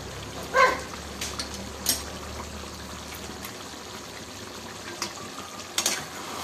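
Chicken curry simmering and bubbling in a steel kadai, a steady wet hiss over a low hum. A loud metal clank rings out about half a second in, and a spatula clicks against the pan near the end.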